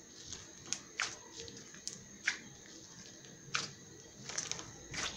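Crunchy slime being squeezed and worked by hand, giving irregular crackling pops and snaps, a handful of sharp ones spaced about a second apart.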